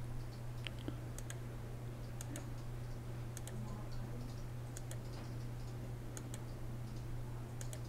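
Faint, irregular computer mouse clicks as pen-tool points are placed, over a steady low electrical hum.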